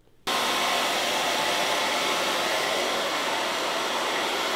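Handheld hair dryer blowing steadily while drying hair: a loud, even rush of air that cuts in suddenly just after the start.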